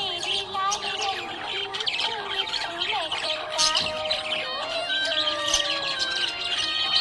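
Budgerigars chirping and squawking rapidly over background music, with long held notes that step in pitch in the second half.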